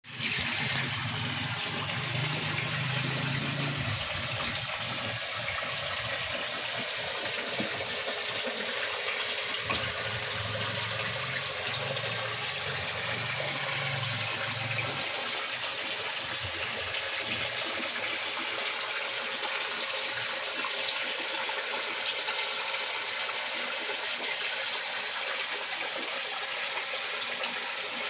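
Steady rush of water in a koi pond, aerated by a ring of air tubing bubbling under the surface.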